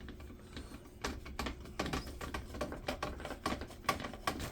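Irregular small clicks and taps as a screw is tightened down by hand with a screwdriver during RC car assembly, with the parts being handled.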